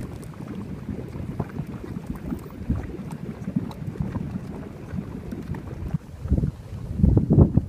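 Geothermal mud pot bubbling: thick gray mud popping with small bubbles, under steady wind rumble on the microphone. Louder rumbling bursts come near the end.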